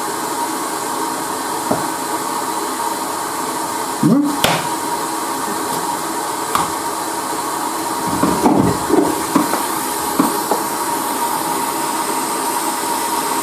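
Hot-air rework station blowing with a steady hiss and a faint whine, heating the glue under a shattered phone back glass. A metal hook tool scrapes and clicks against the cracked glass about four seconds in and several times between eight and ten seconds in.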